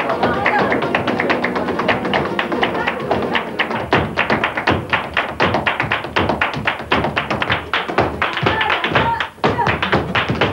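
Live flamenco: fast percussive footwork and hand-clapping (palmas) beating over flamenco guitar. There is a short break in the beat near the end.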